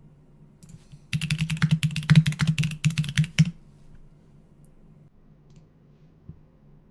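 Rapid typing on a computer keyboard: a quick burst of keystrokes starting about a second in and lasting about two and a half seconds.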